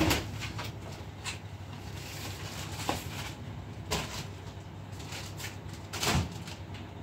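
Large plastic soda bottles being handled and set down in a stack: separate dull knocks and plastic clatter every second or two, the loudest right at the start and about six seconds in, over a steady low hum.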